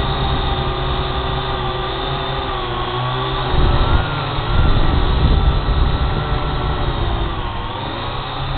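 Drone's propeller motors running with a steady multi-pitched whine that shifts gently up and down as it flies, with a louder low rumble in the middle.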